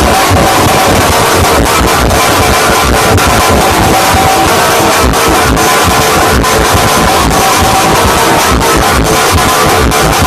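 Music with guitar blasted at very high volume through large outdoor PA loudspeaker rigs, dense and heavily compressed, with pulsing bass.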